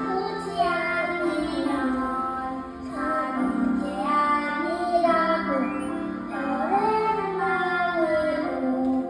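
A young child singing a newly written children's song, with held notes that glide up and down, over a backing accompaniment.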